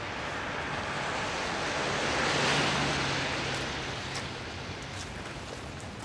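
A car passing on a rain-wet road: its tyre hiss swells to a peak about two and a half seconds in and fades away, over steady rain.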